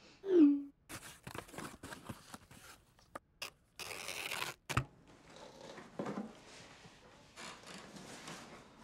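A short falling tone near the start, then cardboard moving boxes being handled: a run of clicks, scrapes and rustles, with a burst of packing tape tearing about four seconds in.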